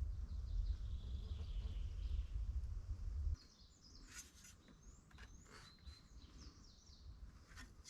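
Small forest birds chirping, with short high whistles gliding up and down. A low rumble fills the first three seconds and cuts off abruptly.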